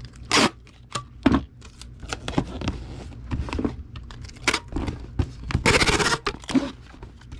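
Packing sounds: a cardboard shipping box and bubble wrap being handled, a string of short clicks, taps and rustles. About six seconds in comes a longer rasping rustle.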